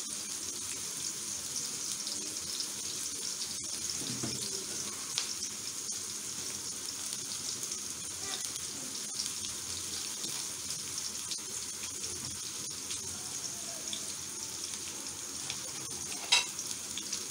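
Sliced onions and chopped garlic sizzling steadily in hot oil in a kadai, with scattered small crackles. A single sharp tap sounds near the end.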